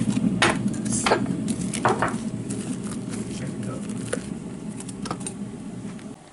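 Ceramic canister with a wooden lid being opened and tea bags taken out into mugs: a few sharp clinks and knocks of lid and pottery on a kitchen worktop, most of them in the first two seconds. A steady low hum runs underneath and stops suddenly near the end.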